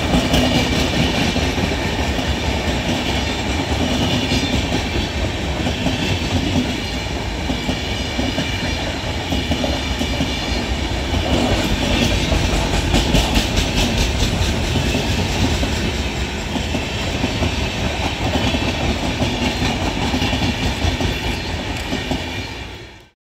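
Indian Railways passenger train of red coaches passing close by at speed: a steady rumble of wheels on rail with repeated clickety-clack over the rail joints. It cuts off suddenly near the end.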